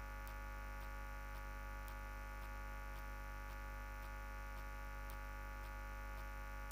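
Steady electrical hum with many overtones, and faint ticks about twice a second.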